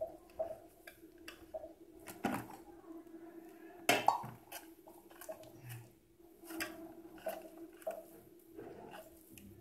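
Hand kneading maize-flour dough in a steel plate: soft pressing and squishing, with glass bangles clinking and small knocks of steel on steel, the loudest about four seconds in as the steel water cup is handled. A faint steady hum runs underneath.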